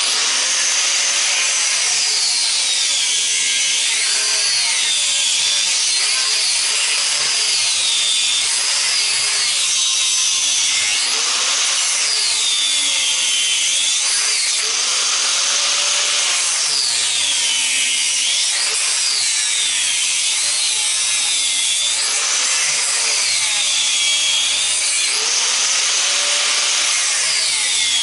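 Angle grinder with a cut-off disc cutting through an electric motor's copper windings, starting suddenly and running steadily, its whine dipping in pitch and recovering every few seconds as the disc loads up in the cut.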